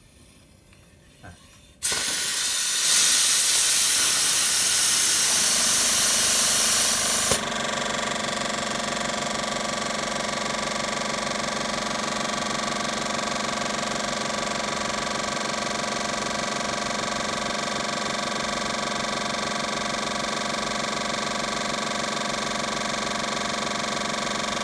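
Compressed air hissing loudly out of a Ryobi high-pressure air compressor, starting about two seconds in and stopping sharply after some five seconds. The compressor's motor and pump then run steadily with a fast, even pulse.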